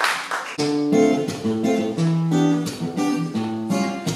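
Applause dies away in the first half-second, then a song's instrumental opening begins: acoustic guitar strumming chords with piano, in a steady rhythm.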